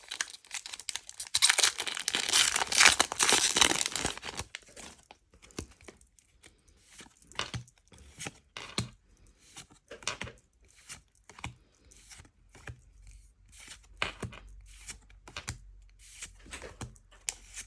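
Foil Pokémon booster pack wrapper being torn open and crinkled for about four seconds, then scattered soft ticks and slides of the cards being handled and flipped through one by one.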